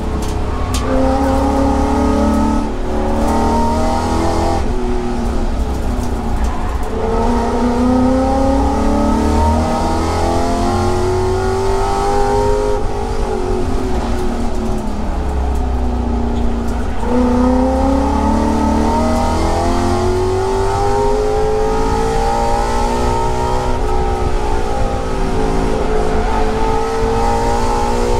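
Racing-prepared Ford Mustang's engine heard from inside the cabin under hard track driving, its pitch climbing and then dropping at each gear change, with a long fall in pitch about halfway through as it comes off the throttle before climbing again.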